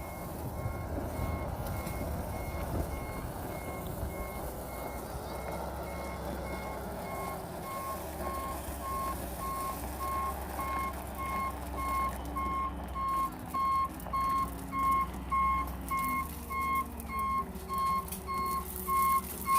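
Dump truck's backup alarm beeping at an even pace as the truck reverses, the beeps growing louder over the second half, over the low rumble of the truck's engine.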